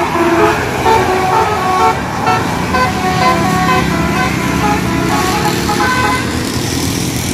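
Indonesian bus 'basuri' telolet musical horn playing a quick melody of stepped notes, which ends about six seconds in. A steady low engine hum runs underneath.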